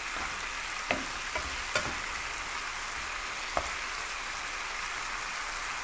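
Chicken balls in tomato and onion sauce sizzling steadily in a frying pan, with about four light clicks of a spoon against the pan as they are stirred.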